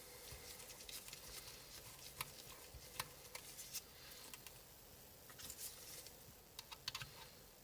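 Faint, scattered small clicks and ticks of a pentalobe screwdriver working the screws of an iPhone 6s, with more clicks near the end.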